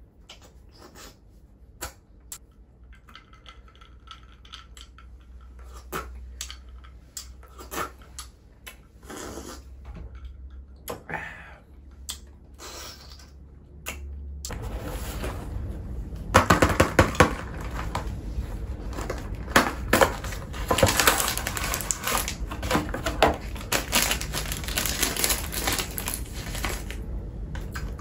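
Close-miked eating and handling of snacks and packaging. Scattered sharp clicks and taps at first, then about halfway through a louder, denser crackling that keeps going.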